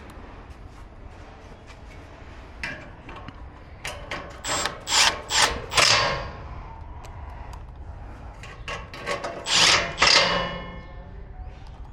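Two spells of work noise on the stainless gas grill's metal parts, about four seconds in and again near the end: sharp clattering and rattling strokes, the second spell leaving a brief metallic ring.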